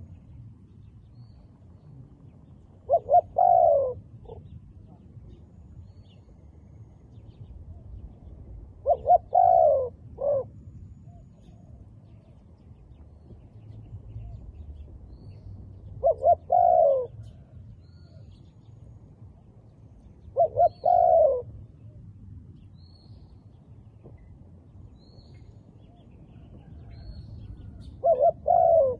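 A dove cooing: five short multi-note coo phrases, each about a second long and spaced several seconds apart. Faint high chirps sound in the background.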